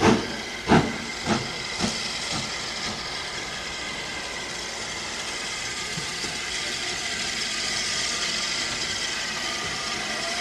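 Southern Railway S15 class 4-6-0 steam locomotive working: slow exhaust beats about two every second that fade away over the first couple of seconds, then a steady hiss of steam.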